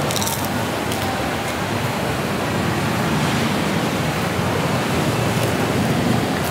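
Steady rushing background noise, with a few faint brief clicks near the start.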